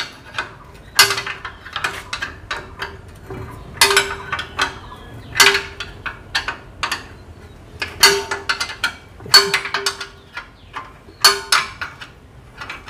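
Spanner clinking on the nuts and steel cutter bar of a rice-and-wheat reaper while the blade clamp bolts are tightened. Irregular metallic clicks and knocks come about one or two a second, many with a brief ring after them.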